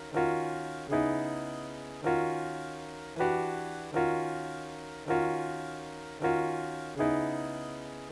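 Background music: a sustained keyboard chord struck about once a second, each fading before the next.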